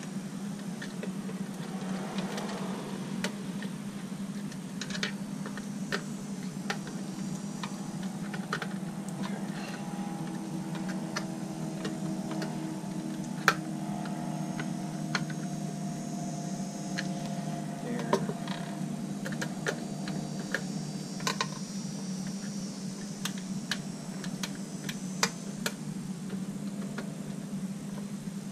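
Scattered light clicks and taps of a screwdriver working at the screw terminals inside a Hayward AquaRite chlorinator's control box, over a steady low hum.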